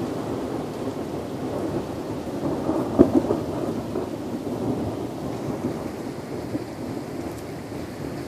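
Thunderstorm: thunder rumbling continuously with rain, and a sharp crack about three seconds in followed by a few smaller crackles.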